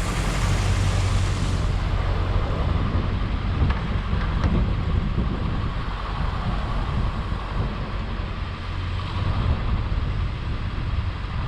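Road and wind noise from a moving vehicle: a steady low rumble with wind on the microphone.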